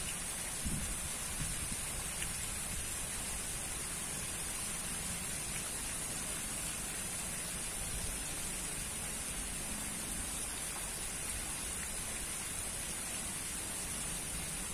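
Pond aerator jets spraying from a pipe and splashing steadily into the water, a constant rain-like patter.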